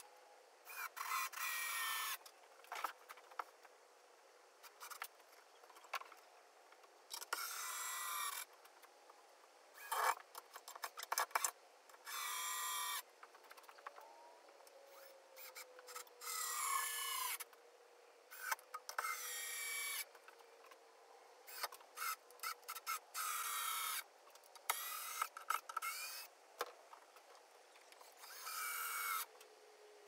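Cordless drill-driver driving screws into softwood timber in about a dozen short runs of one to two seconds each, the small motor whining, with clicks and knocks from handling screws and timber in between.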